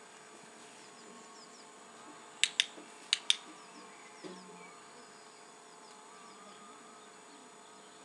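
Dog-training clicker clicked twice, about two and a half seconds in, each a quick double snap of press and release, marking the puppy's behaviour before a food reward. Faint high chirping runs underneath.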